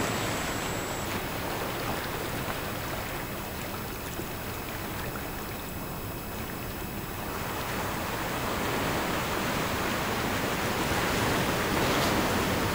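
Recorded ocean waves washing in: a steady hiss of surf that ebbs around the middle and swells again near the end. Faint steady high-pitched tones sit over it.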